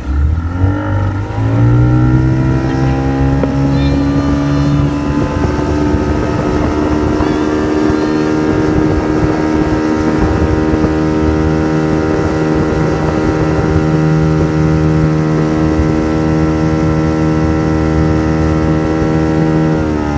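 Motorboat engine speeding up, its pitch climbing over the first two seconds, then running steadily at high speed.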